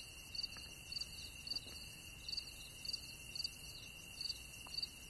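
Crickets chirping at night: repeated high chirps at about two a second over a steady high-pitched trill.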